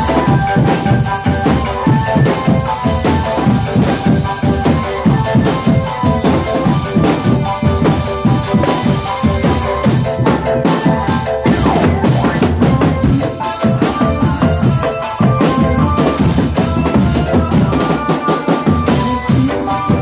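Indonesian drumband playing: marching snare drums, tenor drums and a bass drum beating a dense, driving rhythm with cymbal crashes, under a keyboard melody played through horn loudspeakers.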